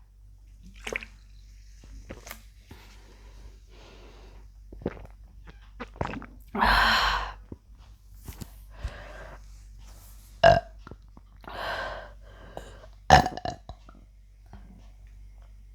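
A woman burping repeatedly after chugging carbonated Pepsi, bringing up swallowed soda gas. One long burp comes about six seconds in, followed by three shorter, sharp ones.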